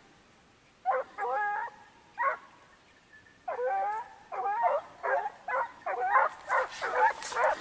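Boar-hunting dogs barking with high, yelping barks. A few come about a second in, then from about three and a half seconds a quickening run of several barks a second, as the dogs give tongue on the trail of a wild boar.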